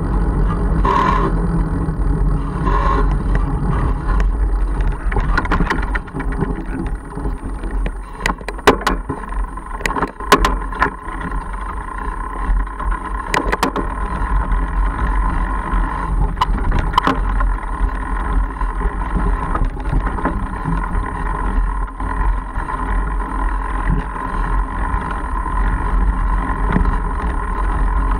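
Riding noise picked up by a camera on a Mongoose Argus fat bike: a steady low rumble of wind on the microphone and the tyres rolling over a dirt trail. Sharp rattles and knocks come through the middle stretch as the bike moves onto rougher singletrack.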